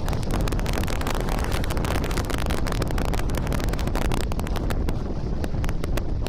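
Strong wind buffeting the microphone: a continuous low rumble broken by frequent crackles and pops.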